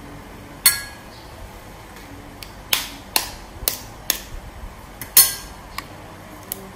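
A metal spoon clinking against a stainless steel bowl and kitchen dishes: about eight sharp clinks at uneven intervals, the loudest about five seconds in, some ringing briefly.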